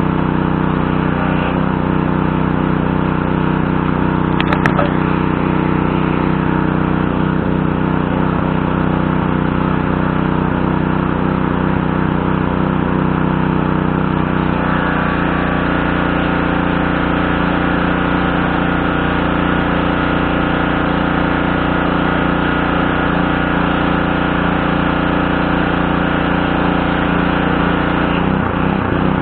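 Craftsman pressure washer's Briggs & Stratton 550E series 140cc single-cylinder engine running steadily while pressure washing. There is a single sharp click about four and a half seconds in, and about halfway through a brighter hiss joins the engine sound.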